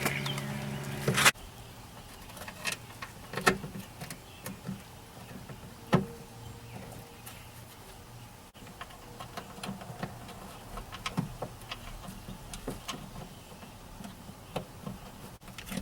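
Scattered small clicks and taps of metal and plastic latch parts and hand tools being worked inside a Ford Ranger door, while a latch cable clip is fitted. A loud steady buzz at the start cuts off suddenly about a second in.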